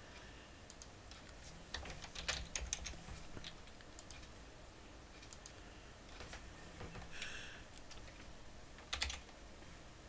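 Computer keyboard typing, faint: scattered keystrokes in short quick bursts with pauses between them.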